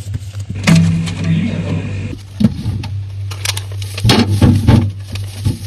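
Plastic food containers and fridge shelves or a crisper drawer being handled, giving a series of knocks and clatters of plastic, over a steady low hum.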